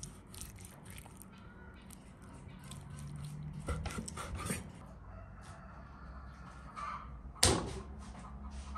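Kitchen knife slicing through raw chicken breast on a wooden cutting board: scattered light clicks and taps of the blade against the board, with one sharp, louder knock near the end.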